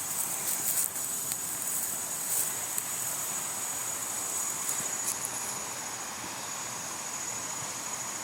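Steady high-pitched insect chorus over an even rushing hiss, with a few faint clicks in the first few seconds.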